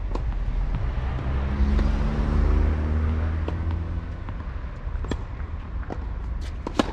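A motor vehicle passes, its engine and tyre noise swelling and fading over a low rumble about two to three seconds in. A few sharp tennis-ball impacts are heard, the last and loudest a serve struck near the end.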